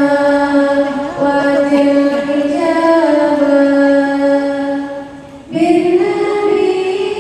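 A woman singing unaccompanied in long, held notes that step slowly between pitches, with a short break for breath about five and a half seconds in.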